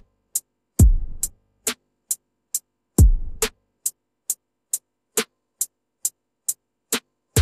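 Electronic drum-machine beat with no other instruments: a sharp, high, hi-hat-like tick a little over twice a second. A deep booming bass kick with a short rumbling tail lands about a second in, again about three seconds in, and once more at the very end.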